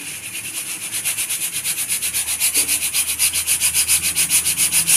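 Pressure cooker's weight valve rattling as it releases steam, a rapid pulsing hiss at about eight pulses a second that grows steadily louder. Pressure has built up inside the cooker.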